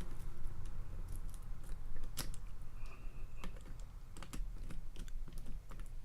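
Irregular small clicks and taps of metal tools and a lock being handled, with one sharper click about two seconds in.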